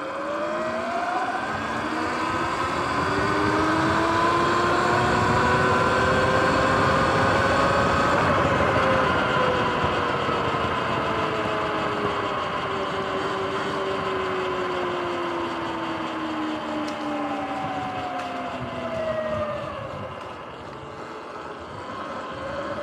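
Sur-Ron X electric dirt bike's motor and drive whining while riding. The whine rises in pitch as the bike speeds up over the first eight seconds or so, then slowly falls as it slows, over a steady rushing noise.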